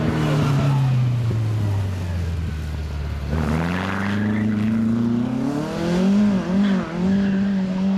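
VW Beetle rally car's engine: revs fall as it slows past, then climb steadily under hard acceleration, dipping twice briefly before holding high.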